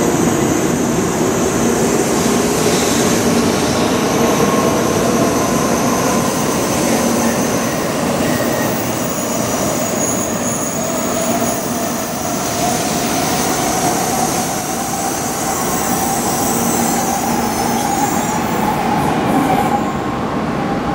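N700-series Shinkansen pulling out of the platform: the electric traction motors' whine rises steadily in pitch as the train accelerates, over the rumble and hiss of the wheels on the rails.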